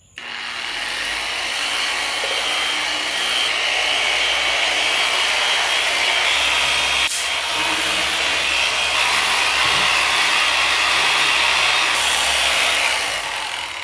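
Corded dual-action polisher with a 4-inch pad running on the painted clear coat of a motorcycle fuel tank, buffing in scratch remover: a steady whir with the pad rubbing the paint. It starts at once and eases off near the end.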